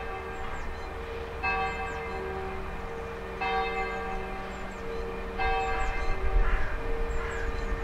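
Church bells ringing, a new ringing strike about every two seconds. A low rumble from the passing freight train grows in the last couple of seconds, with small bird chirps above.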